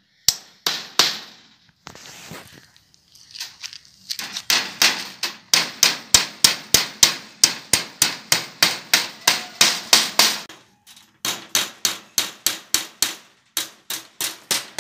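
Hammer driving small nails through welded wire mesh into a wooden frame. A few separate blows come first, then about four seconds in a fast run of steady strikes at about three a second, broken by short pauses near the end.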